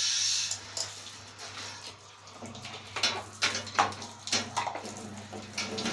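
Water spraying from a shower that stops about half a second in, followed by a series of knocks and clatter as the wet plastic vacuum cleaner parts are handled.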